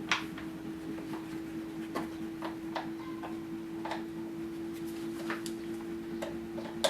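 Scattered sharp clicks and taps at irregular intervals as parts of a lawn mower's air filter housing are handled and fitted into place, over a steady hum.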